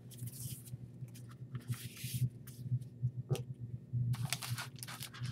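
Handling noise from a laptop being turned over and moved about in the hands: scattered rustles and scrapes, with one sharp click about three seconds in, over a steady low hum.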